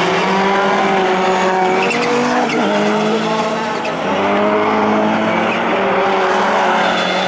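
Rallycross Supercars, among them a Citroën DS3 with a turbocharged four-cylinder engine, racing hard. The engine notes climb and then step down with each gear change.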